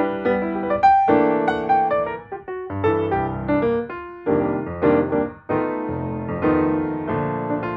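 Background music: a piano playing a light tune, notes struck one after another with short decays.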